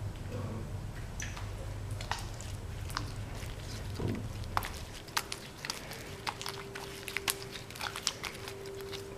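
Sticky, watery glue slime being taken out of the bowl and kneaded by hand: quick wet clicks and pops, coming faster in the second half.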